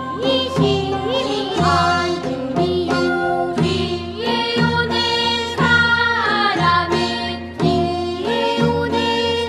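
A group of children singing a Korean folk-style rice-paddy weeding song, with sliding, ornamented melody lines, over instrumental accompaniment with a steady beat.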